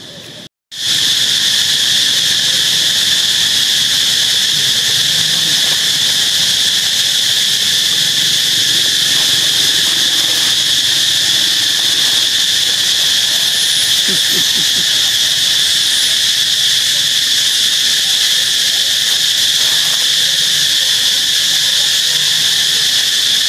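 A steady chorus of insects droning without a break, cutting in suddenly about half a second in.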